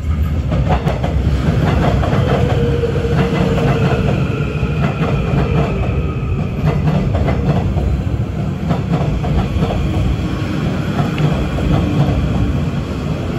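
Seoul Metro Line 3 electric subway train running past at close range as it slows into the station: a steady loud rumble with rapid clacking of wheels over rail joints and a faint whine slowly falling in pitch.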